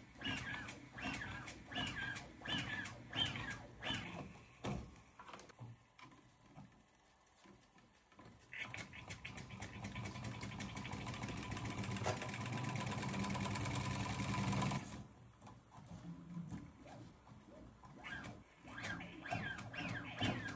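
Small 1917 Bing live-steam toy engine being turned over by hand, giving short irregular puffs and knocks. About eight seconds in it catches and runs with a fast, steady exhaust beat that grows louder. It stops suddenly a few seconds later, and the slow, irregular puffs of hand-turning come back near the end.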